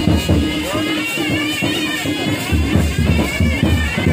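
Traditional folk band music: a shrill reed pipe playing a wavering melody over steady, quick drumbeats, with a crowd murmuring underneath.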